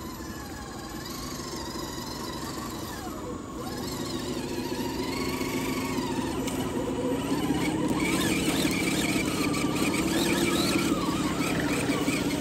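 Electric drive motors and geared transmissions of scale RC crawler trucks whining as they climb a steep dirt slope, growing steadily louder as the lead truck comes close.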